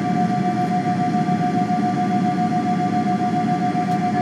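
Boeing 777 cabin noise on the ground with the GE90 engines at idle: a steady whine over a low rumble.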